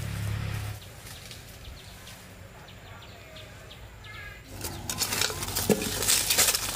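A low hum that stops about a second in, then a quieter stretch with a few faint bird chirps, then rustling and crackling from a little past halfway.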